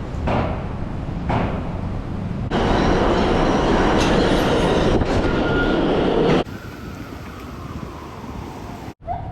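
A train running, a steady rumble and rush that is loudest from about two and a half to six and a half seconds in, with abrupt changes where short clips are cut together.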